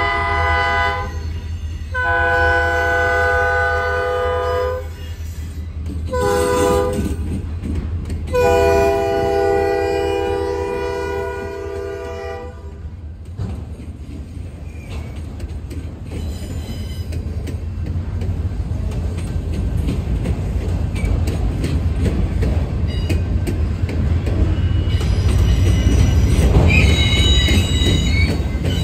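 Diesel locomotive horn, on a Norfolk Southern SD40-2, blowing the grade-crossing signal: the end of one long blast, then another long one, a short one and a final long one, a chord of several tones. After it the train's low rumble and the clatter of autorack freight cars rolling past grow louder, with a high wheel squeal near the end.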